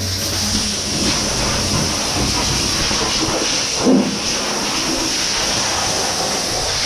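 Air-blower nozzle hissing steadily as it blasts snow off ski clothing and gear, with a short knock about four seconds in.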